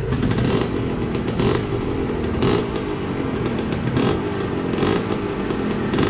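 Kawasaki KMX125 two-stroke single-cylinder engine running on its first start-up with an aftermarket V-Force reed valve fitted. It is blipped on the throttle repeatedly, rising in a short surge about once a second.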